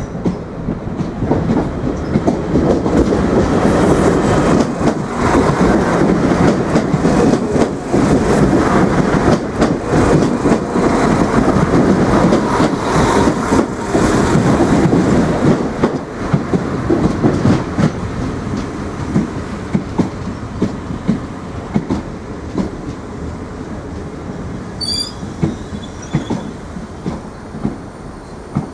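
A train runs close past at speed, its wheels rumbling and clattering over the rail joints. The noise then dies down to the slower wheel clicks of an Irish Rail 22000 class diesel multiple unit rolling in, with a brief high squeal near the end.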